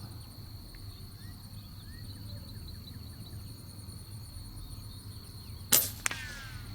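FX Streamline .25 PCP air rifle, unsuppressed, firing one shot about six seconds in: a sharp crack with a short ring after it. Under it runs a steady high-pitched insect buzz.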